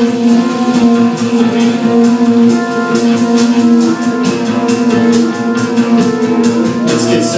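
Live rock band playing, loud: electric guitars holding sustained notes over a drum kit, with drum and cymbal hits coming thicker in the second half.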